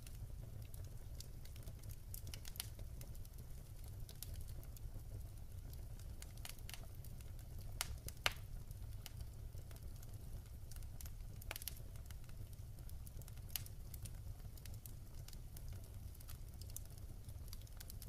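Wood logs burning in a fireplace, crackling with scattered sharp pops over a steady low rumble; the loudest pops come about eight seconds in.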